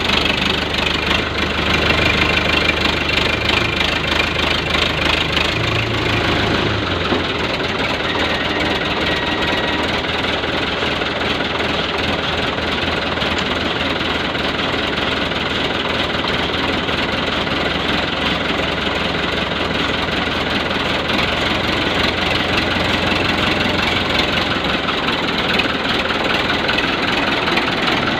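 Fiat 640 tractor's four-cylinder diesel engine running steadily at low speed. Its deep low rumble thins out about seven seconds in.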